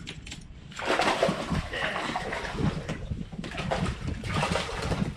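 Hooked sheepshead splashing and thrashing at the water's surface while being reeled in, starting about a second in and coming and going.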